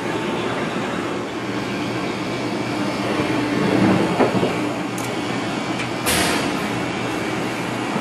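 Heavy machinery running with a steady mechanical rumble that swells a little about four seconds in, and a brief hiss about six seconds in.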